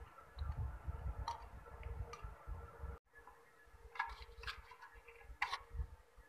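Scattered light clicks and taps from hands and tweezers handling a printed circuit board with an aluminium heat sink and power transistors fitted, with a low handling rumble in the first half.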